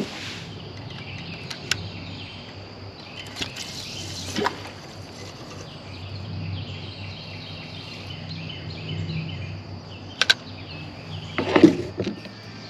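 Outdoor riverside ambience with faint bird chirps over a steady high hiss, broken by a few sharp clicks and knocks from gear being handled in the kayak, the loudest cluster near the end.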